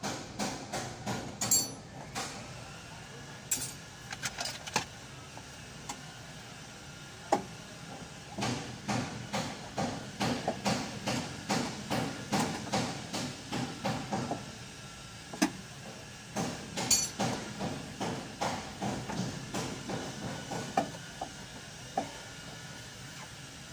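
Repeated hammering: runs of sharp knocks at about two a second, broken by short pauses, with a few brighter metallic clinks among them.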